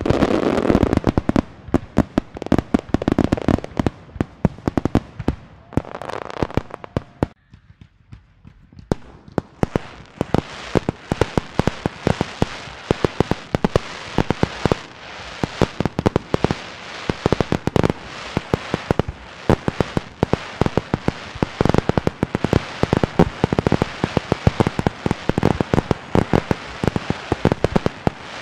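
Fireworks display: a rapid, continuous barrage of bangs and crackles, with a brief lull about eight seconds in before the barrage picks up again.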